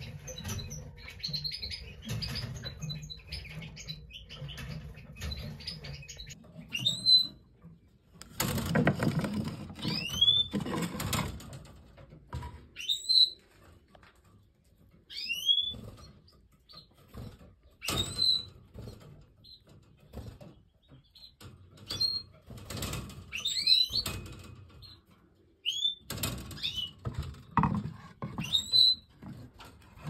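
Canaries calling: short high chirps that sweep up or down, one every two or three seconds, over fainter quick chirping. Several loud bursts of rustling and fluttering come in between.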